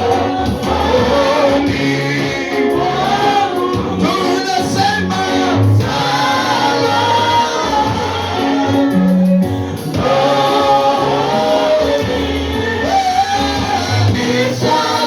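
Gospel worship music: a choir and singers with a band, a bass line moving under the voices.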